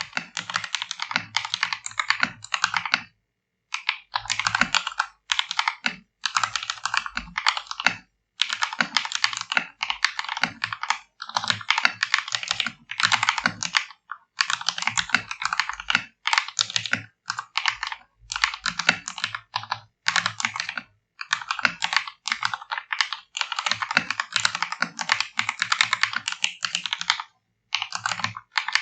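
Orbiter 67 65% mechanical keyboard being typed on for a sound test: its lubed Akko Jelly Sakura switches and keycaps clicking in quick runs, in a polycarbonate case and plate, with short pauses between runs.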